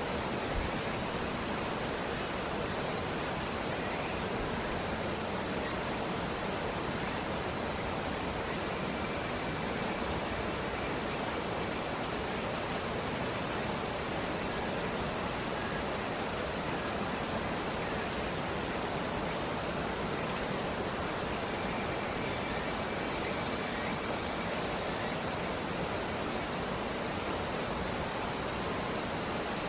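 Steady, high-pitched chorus of insects shrilling without a break. A second, higher insect song turns into a quick pulsing rhythm in the last several seconds.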